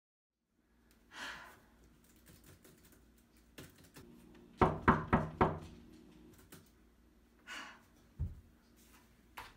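Four quick knocks on a door about halfway through, with a single dull thump near the end. Light clicks of laptop keyboard typing are scattered between them.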